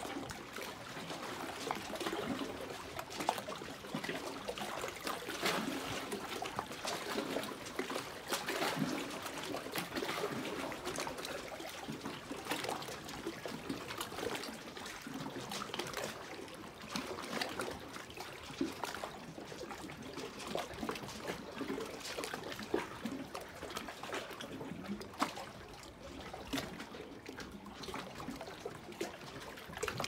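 Lake water lapping against shoreline rocks: a continuous run of small, irregular splashes.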